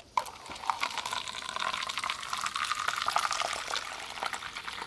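Water spurting through a drinking straw into a paper cup, driven out of a plastic water bottle by air blown into the bottle's mouth; a steady filling and splashing sound whose pitch rises slightly as the cup fills.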